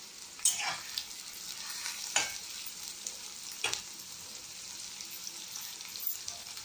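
Chopped onions sizzling steadily in hot oil in an aluminium kadai, with three short sharp sounds spaced about a second and a half apart.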